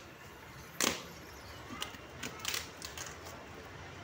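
Packing tape on a cardboard box cut open with scissors, a short ripping burst about a second in, followed by scattered clicks and rustles of cardboard as the flaps are pulled open.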